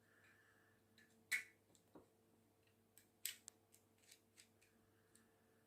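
Faint scattered clicks and small knocks from hands handling electrical wire and a doorbell push switch while wiring a compressor test lead, the two clearest about a second and a half apart near the middle, over a faint steady hum.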